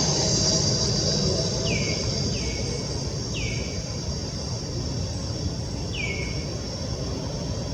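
Outdoor ambience: a steady high insect drone, with a bird giving a short downward-sliding call four times, over a low rumble.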